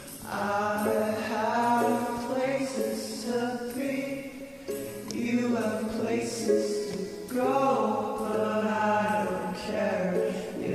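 Folk song playing, with voices singing over the music.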